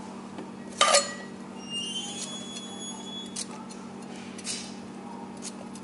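Yardlong bean pods snapped by hand into short pieces over a clay mortar: a few crisp snaps, the loudest about a second in. There is a brief light clink about two seconds in, and a low steady hum underneath.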